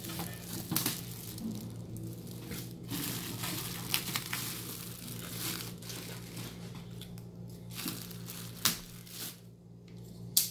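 Cardboard box and plastic packaging being moved and handled, with uneven crinkling, rustling and scraping and a few sharp knocks, the loudest near the end. A steady low hum runs underneath.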